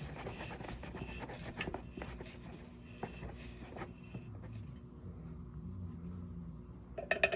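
A welded freewheel being screwed by hand onto a dirt bike's threaded rear hub: light scraping and small clicks of metal threads and parts. The sound eases off about halfway through, and a few clicks come near the end.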